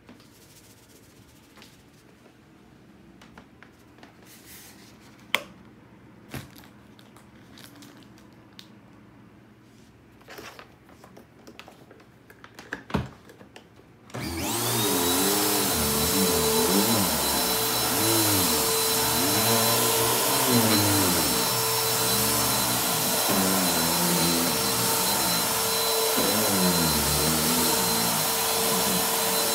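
For about the first half, only a few faint clicks and knocks. Then an upright vacuum cleaner switches on and runs steadily with a high whine, its lower tones rising and falling while it works over a rug.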